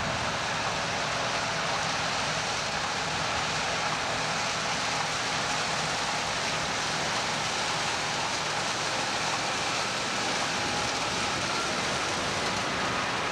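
John Deere combine harvesting soybeans, running at a steady pitch: an even, constant rushing noise with a faint underlying hum.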